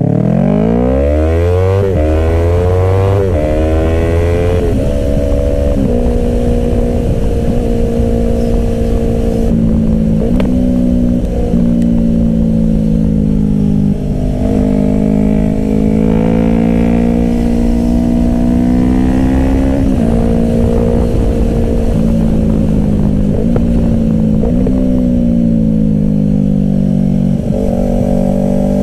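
Yamaha R3's parallel-twin engine accelerating through the gears, its pitch climbing and dropping at each upshift over the first few seconds. It then holds a steady cruise with small throttle changes and a few more shifts.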